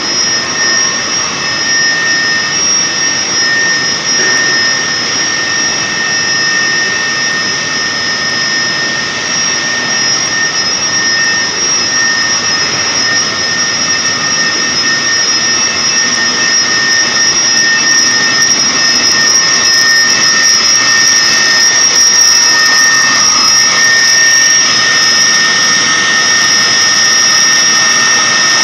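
Food-processing line running: steady machinery noise from its motors, pumps and blowers, with a constant high whine over the churn of liquid in the processing tanks. It grows a little louder in the second half.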